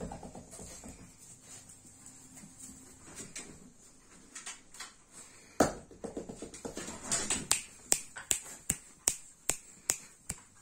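A run of sharp finger snaps, about two or three a second, through the second half, after one louder knock about halfway in.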